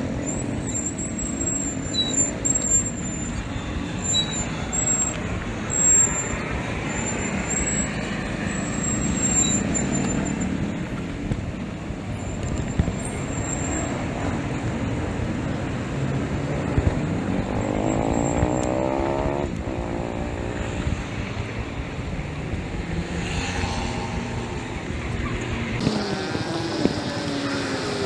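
Road traffic heard from a bicycle riding among cars and motorcycles: a steady rush of traffic noise, with one engine rising and falling in pitch about eighteen to twenty seconds in.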